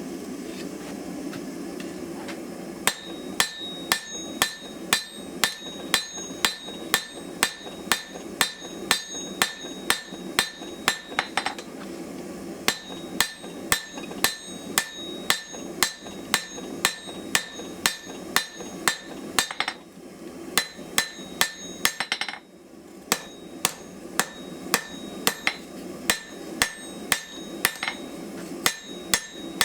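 Hammer blows on hot steel over an anvil as a knife blade is drawn out longer. The blows come steadily at about two a second, each with a bright ring, in runs broken by short pauses, over a steady low hum.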